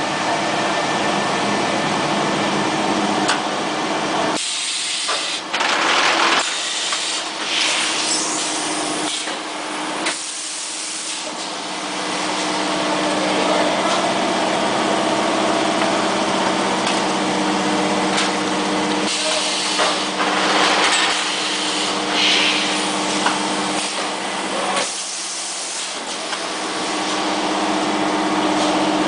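Vacuum forming machine running with a steady hum, broken several times by loud bursts of compressed-air hiss, each about a second long, from its pneumatic valves and cylinders.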